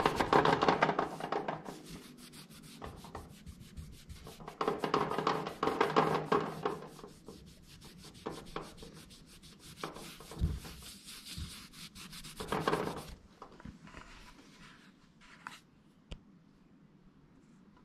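Bursts of rubbing and scraping with a few light knocks scattered between them, dying away in the last few seconds.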